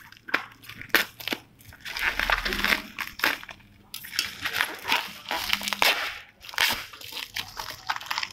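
Plastic bubble wrap crinkling and crackling as it is handled and pulled open by hand, in dense irregular bursts that are busiest in the middle.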